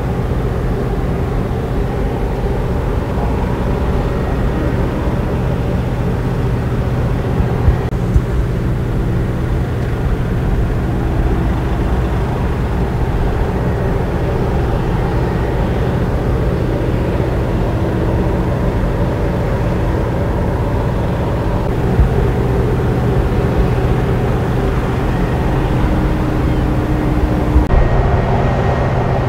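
Moored offshore vessel's engines running at the berth: a steady low machinery hum with a few faint knocks.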